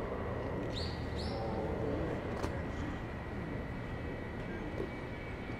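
Steady outdoor background rumble with a faint steady high tone, and two quick high bird chirps about a second in; a single sharp click comes about halfway through.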